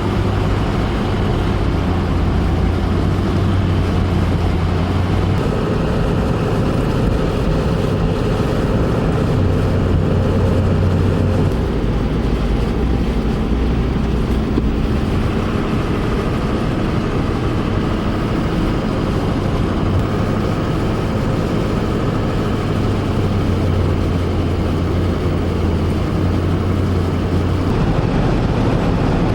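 Steady engine and road noise heard inside a moving vehicle's cabin while driving on a highway, with a low hum under a steady rush of tyre and wind noise.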